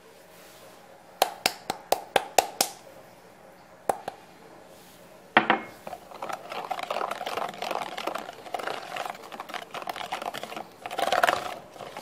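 A run of sharp taps and a knock in the first half, then a wire whisk beating flour and cornstarch into egg batter in a bowl: a fast, steady scratchy rattle from about six seconds in, strongest near the end.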